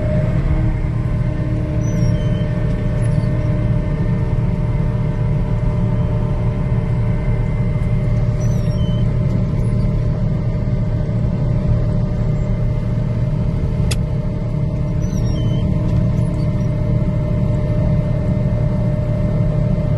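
Steady low rumble of a car heard from inside its cabin, with a faint steady hum above it.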